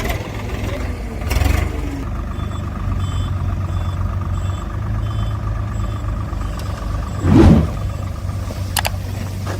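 A heavy vehicle's engine running steadily while a reversing alarm beeps in short, even pulses for a few seconds, with a short loud burst about seven seconds in.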